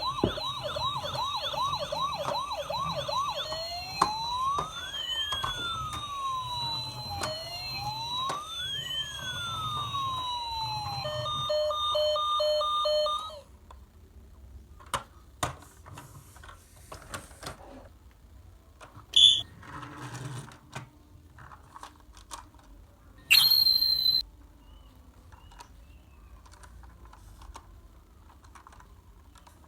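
An electronic toy siren cycling through its patterns: a fast yelp, then slow rising and falling wails, then a pulsing beep, cutting off suddenly about 13 seconds in. After it come scattered small clicks and two short high beeps.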